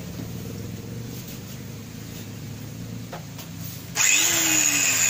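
A low steady hum, then about four seconds in an angle grinder suddenly starts grinding on a steel leaf spring: a loud, harsh grinding hiss with the motor's whine sinking slightly in pitch under load as it takes rust off the spring.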